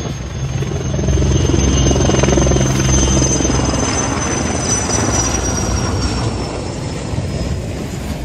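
Erickson S-64 Air-Crane firefighting helicopter flying overhead: a steady rotor beat with a high turbine whine that slowly falls in pitch as it passes. Loudest a second or two in, then slowly fading.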